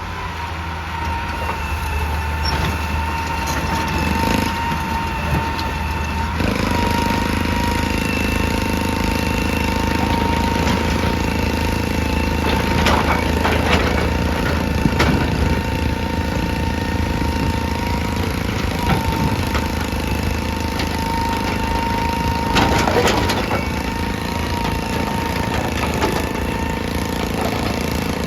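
An excavator's diesel engine runs under load with a steady high whine and grows louder about six seconds in. Rock knocks and scrapes a few times around the middle and again later on.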